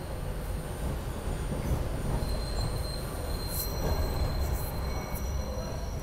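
SEPTA Broad Street Line subway train running, heard from inside the car: a steady low rumble of wheels on rail. A thin, high wheel squeal sets in about two seconds in and stops about a second before the end.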